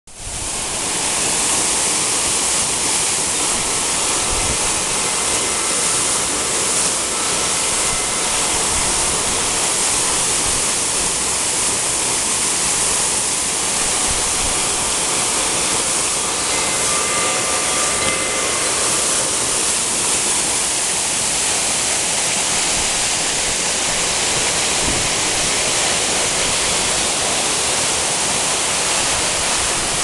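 Waterfall pouring down a rock face into a pool: a loud, steady, unbroken rush of falling water.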